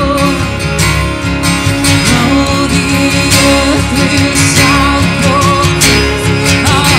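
Live worship band playing a slow worship song: strummed acoustic guitar, electric guitars and a violin carrying wavering melody lines over a steady bass rhythm.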